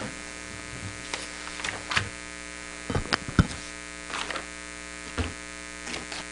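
Steady electrical hum and buzz in the room's microphone system, with scattered knocks, thumps and paper rustles as people get up from their chairs. The sharpest knocks come about three seconds in.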